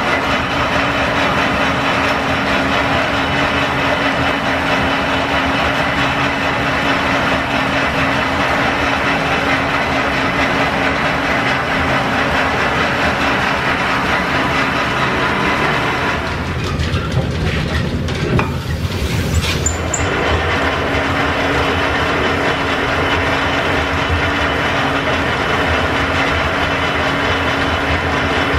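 Line-shaft-driven engine lathe turning a metal bar held in its chuck, the tool cutting steadily over a continuous clatter of gearing and running belts. For a few seconds about two-thirds of the way through the sound changes and goes lower, with a brief high whistle.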